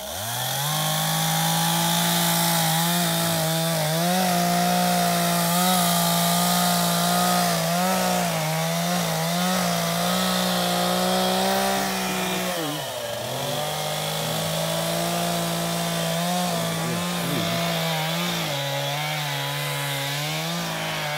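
STIHL MS 251 two-stroke chainsaw revving up and running at high revs as it cuts into the base of a tree trunk. The engine note wavers under the load, dips briefly about halfway through, then settles lower near the end.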